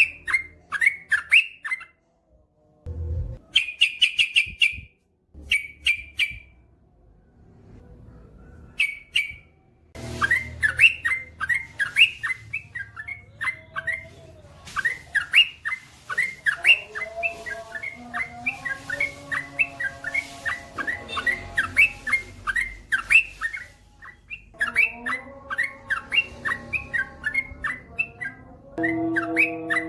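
Yellow-vented bulbul (trucukan) singing: short groups of quick chirping notes at first, then from about ten seconds in a long, nearly unbroken run of rapid notes. Fainter drawn-out lower tones sound underneath through the later part.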